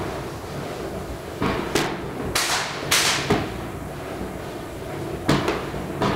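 Firecrackers and fireworks going off: a scattered run of about eight sharp bangs, with a longer hissing, crackling burst near the middle.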